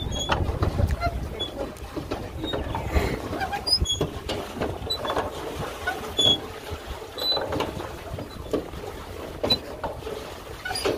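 Rowboat on a lake: irregular knocks and short high squeaks over a low rumble.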